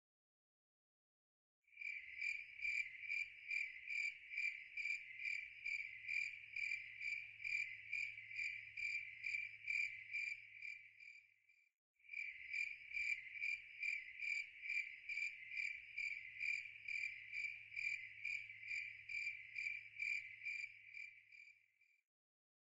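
An insect chirping in an even, steady pulse, about two and a half chirps a second, in two long runs with a short break about halfway through.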